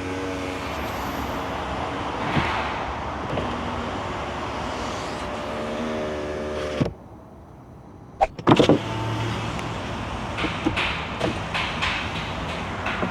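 Car power window motor running with a steady whine while loud outside noise comes in. About seven seconds in it stops abruptly and the noise drops sharply, as if the cabin is sealed off. Roughly a second and a half later a few clicks and a thump come, and the outside noise returns, with scattered clicks.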